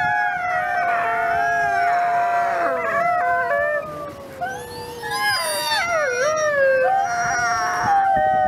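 Gray wolf howling, a long steady howl joined by other wolves' howls rising and falling over it in a chorus. The chorus thins briefly about four seconds in, then swells again.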